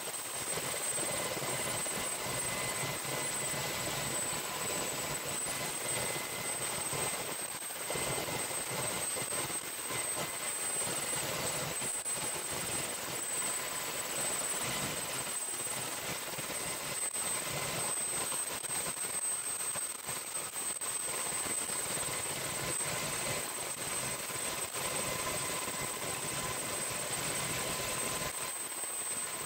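Syton AH130 ultralight helicopter's Solar T62 gas turbine running steadily, heard from inside the cockpit: a constant high turbine whine over the rushing noise of the rotor, as the helicopter hovers low and lifts off.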